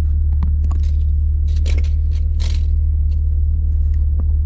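A six-speed manual gear lever is pushed out of neutral into gear, with light clicks and two brief scrapes from the lever, its boot and a tape measure held against the knob. A steady low rumble runs underneath throughout.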